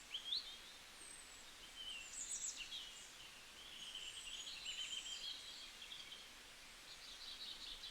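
Birds chirping and singing, several high-pitched calls and trills overlapping, over a faint steady hiss.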